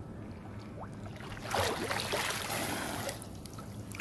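Seawater splashing and streaming off as a clump of oysters is lifted out of the shallow sea, loudest for about a second and a half in the middle, over a steady low hum.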